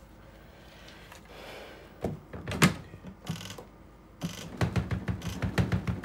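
Plastic spin-dryer lid of a Twin Spin XPB36-388S twin-tub washing machine knocking shut, the loudest knock a little over two seconds in. Then the dryer's mechanical timer dial is turned, giving a fast, even run of ratcheting clicks in the last second and a half.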